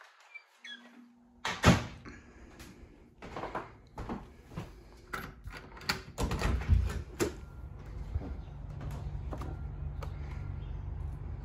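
A door being handled and opened: a series of clicks and knocks from the latch and door, loudest about two seconds in and again around six to seven seconds in. After that, a steady low outdoor rumble sets in once the door is open.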